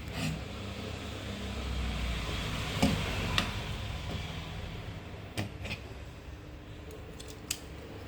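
Handling and water noise picked up by a lavalier microphone dipped in a bowl of water: a steady rushing noise that swells about two to three seconds in and then eases off, with a few sharp clicks.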